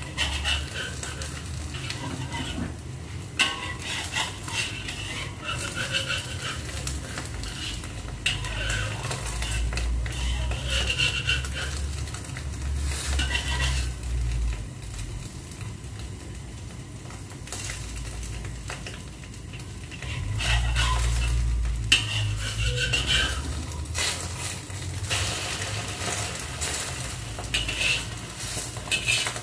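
Metal spatula scraping and tapping against a wok as a thin egg omelette is fried, loosened and folded, with the egg sizzling.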